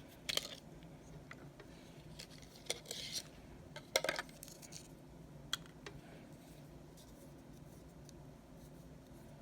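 Small hard objects being handled: a few light clicks and taps, most of them in the first six seconds, then quiet.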